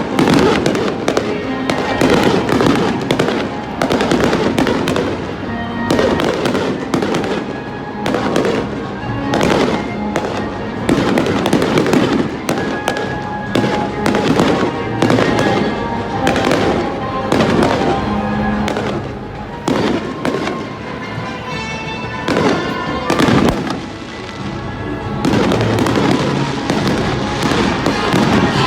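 Fireworks display, shells bursting in quick succession, several bangs a second at times, with music playing underneath.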